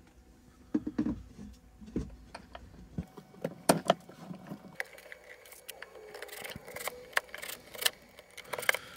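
Back panel knocking and clattering as it is set into the amp cabinet. From about halfway a cordless drill runs in short bursts, driving the panel's screws, with handling clicks and rattles.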